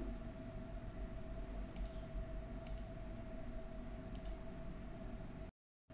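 A few faint clicks from operating the computer that drives the CNC controller, each a quick double tick, spaced about a second apart, over a steady hum with one constant whining tone. The sound cuts out completely for a moment near the end.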